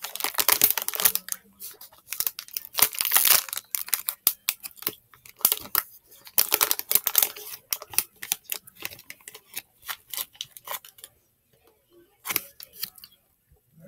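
Hershey's chocolate wrapper crinkling and rustling in the hands, in irregular bursts, dying away near the end with one last short rustle.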